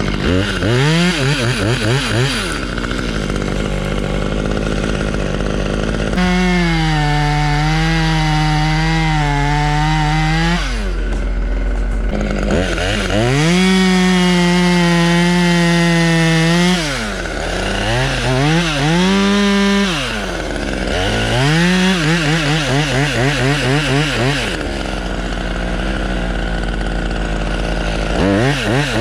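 Two-stroke chainsaw revved in quick throttle blips and twice held at full speed for a few seconds, cutting through an oak leader.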